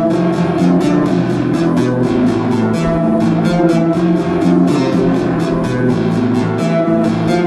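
Keyboard synthesizer chords played through a home-built rotating tape-drum delay, the dry signal mixed with the delayed echoes read off its tape heads. Under the sustained chords runs a fast, even ticking pulse, about four or five a second.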